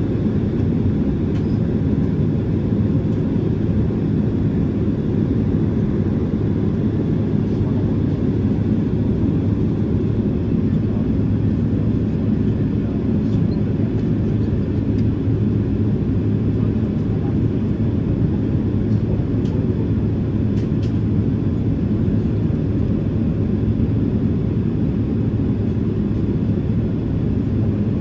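Steady low cabin rumble with a constant hum inside a Boeing 767-300ER being pushed back from the gate.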